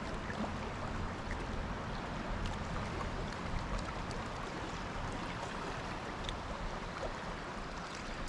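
Steady rush of flowing river water, with a few faint scattered clicks.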